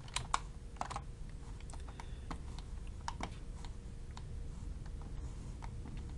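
Scattered, irregular clicks of a computer mouse and keyboard at a desk, faint against a low steady room hum.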